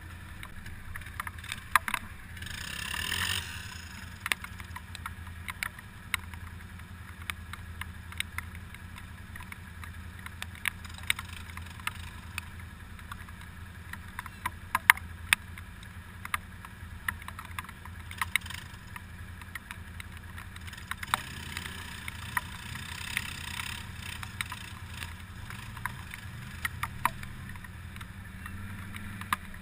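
ATV engine idling with a steady low hum, with scattered sharp clicks throughout. A short rushing noise comes about three seconds in, and a little over twenty seconds in the engine note rises and wavers as a quad is revved.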